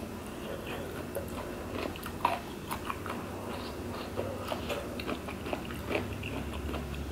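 Close-up chewing and mouth sounds of a person eating chewy rice cakes (tteokbokki), with many small scattered clicks.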